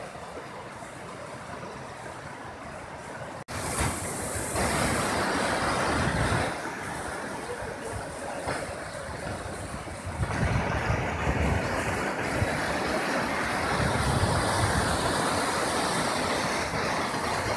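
Steady rush of a swollen, muddy river in flood, with gusts of wind on the microphone. A brief dropout comes about three and a half seconds in, and the sound is louder after it.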